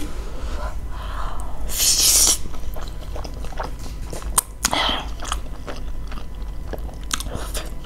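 Close-up eating sounds of cheesy spicy Buldak ramen: wet chewing with small mouth clicks, with a loud slurp of noodles about two seconds in and a shorter one near the middle.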